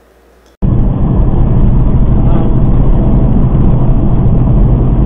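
Semi truck's engine and road noise heard inside the cab while cruising on the highway, loud and steady, starting abruptly just over half a second in.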